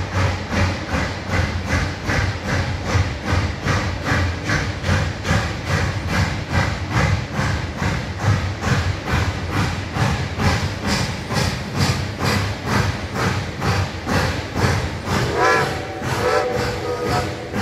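Reading & Northern steam locomotive pulling in, its exhaust chuffing in an even beat about three times a second. Near the end its steam whistle sounds one chord-like blast.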